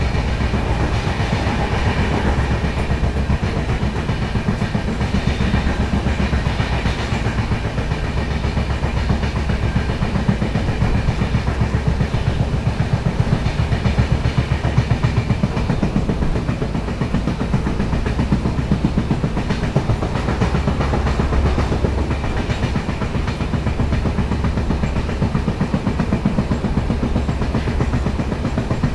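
LHB passenger coach running at speed, heard from beside the coach: a steady rumble of wheels on rail with a rapid, regular pounding from the wheels, the beat of a flat spot worn on a wheel.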